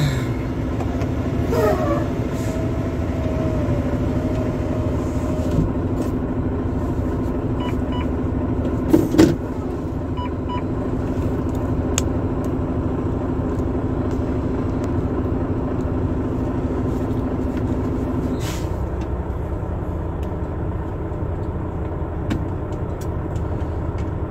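Semi-truck's diesel engine running, heard from inside the cab as a steady low rumble with a hum that drops away about eighteen and a half seconds in. A couple of short knocks come about nine seconds in.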